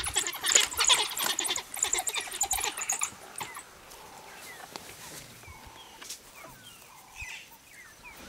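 African wild dogs twittering: a dense run of high-pitched chirps and squeals for about three seconds, then fainter, scattered chirps.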